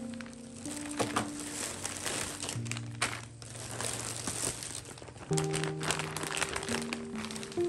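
Soft background music with held notes. Over it, a plastic carrier bag and the plastic packs of frozen food crinkle in short bursts as they are handled and lifted out.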